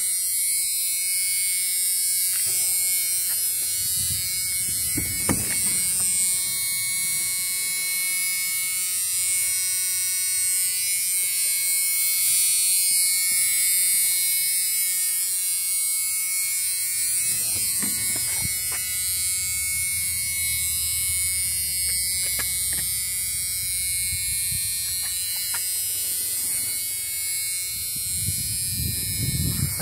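Steady electrical buzz inside an older pickup truck's cab, with a low steady rumble beneath it, with a few faint knocks and handling noises.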